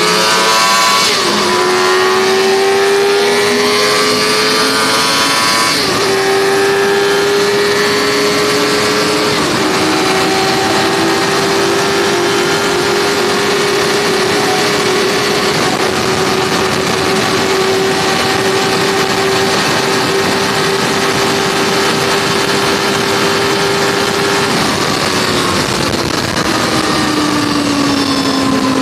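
Suzuki GSX-R600 SRAD inline-four engine heard from on board under hard acceleration. The revs climb and drop sharply at upshifts about a second, six seconds and nine and a half seconds in. It then holds a steady high-rev run, and the revs fall away near the end as the throttle eases off.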